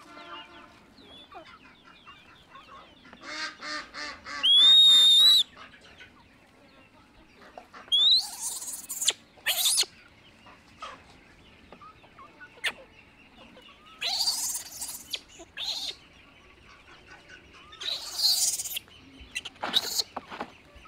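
Chickens clucking and squawking in short bursts. The loudest is a high rising call about five seconds in, and more loud squawks come around eight, fourteen and eighteen seconds in.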